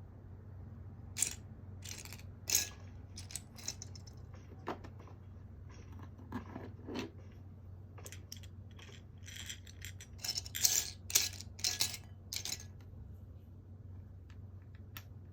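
Small plastic LEGO pieces clicking and clattering as they are handled and sorted: scattered sharp clicks, with a quick flurry of them about ten to twelve seconds in, over a faint steady low hum.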